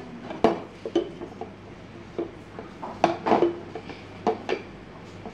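Empty glass wine bottle knocking and clinking against a slatted frame and boards as it is handled and set in place: a few sharp knocks, with a cluster of them about three seconds in.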